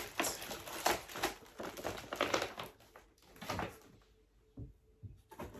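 Rustling of packaging with small knocks and taps as cosmetic products are picked out of the box and set down, busiest in the first few seconds and quieter near the end.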